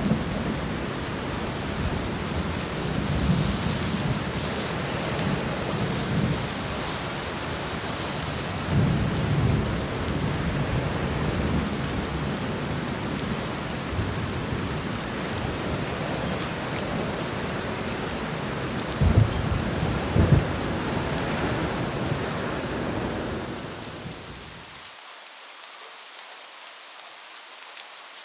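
Steady rain with rolling thunder, swelling and fading several times, and two sharper claps about two-thirds of the way through. Near the end the deep rumble cuts off suddenly, leaving a quieter hiss of rain.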